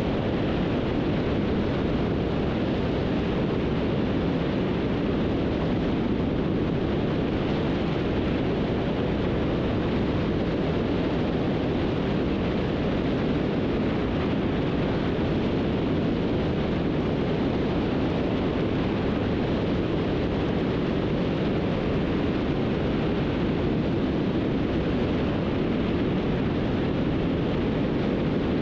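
Beech 18's twin radial piston engines running steadily in flight, heard from inside the cockpit as an even, unbroken rumble.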